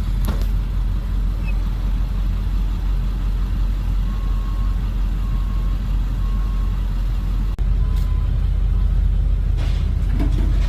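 Pickup truck engine idling with a steady low rumble, heard from inside the cab; a few short, faint beeps sound midway. The rumble turns louder after an abrupt cut about three-quarters of the way through.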